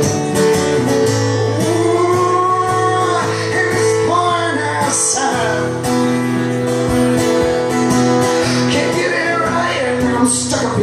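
Live acoustic guitar being strummed, with a man singing long held notes over it.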